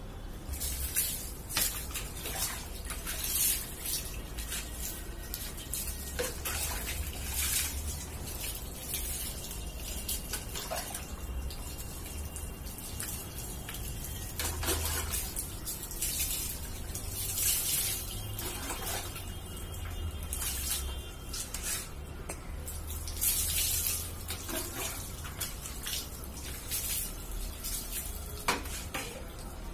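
Water splashing and dripping during a dog's bath, in irregular splashes, with a low steady hum underneath.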